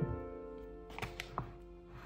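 Soft background piano music, with a dull thump at the start and three quick light knocks about a second in from a wooden cabinet door being pushed.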